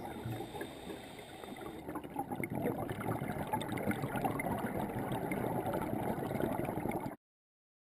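Muffled underwater noise picked up through a camera housing: a dense crackly hiss that cuts off suddenly about seven seconds in.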